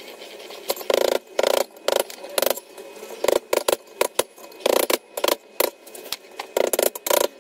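Screwdriver prying and clinking against the steel lock tabs and bolt heads of a rear sprocket, bending the lock tabs up against the nuts: a string of irregular sharp metallic clinks, often in pairs.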